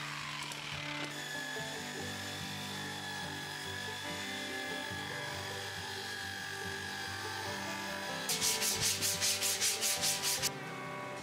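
Drill-driven disc sander running with plywood pressed against it, a steady gritty whine. About eight seconds in, this gives way to quick back-and-forth strokes of sandpaper rubbed by hand along a plywood edge, about five strokes a second for about two seconds.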